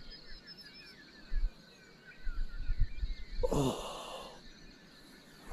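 A person waking up gives one drawn-out groan that falls in pitch, about three and a half seconds in. Faint birdsong chirps in the background.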